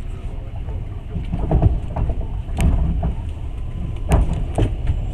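Passenger train carriage running on the rails, heard from inside: a steady low rumble with a few sharp knocks from the wheels and track, two of them close together near the end.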